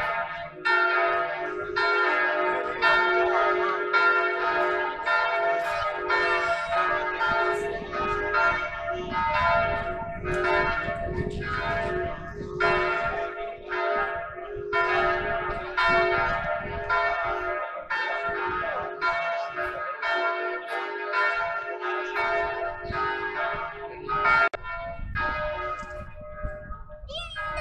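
Church bells ringing in a continuous peal, about two strikes a second, each tone ringing on into the next. The ringing marks the commemoration of the Armistice.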